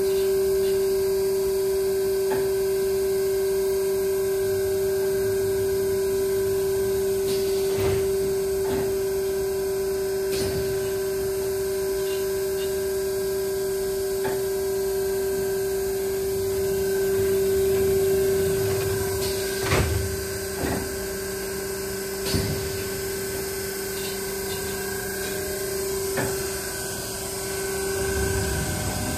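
Alloyd Brands AE go 8 Duo rotary blister sealer powered on, giving a steady mid-pitched electrical hum with fainter higher tones over it. A few sharp clicks and knocks are heard along the way.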